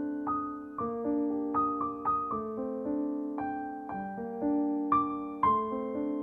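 Background piano music: single notes struck one after another over held lower notes.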